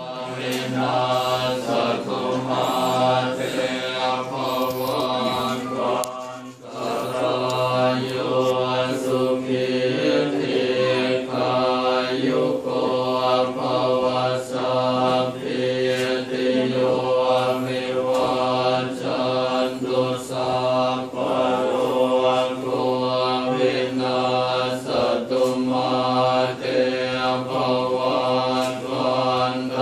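Group of Thai Buddhist monks chanting Pali in unison: a steady, low, droning recitation with one brief break about six seconds in.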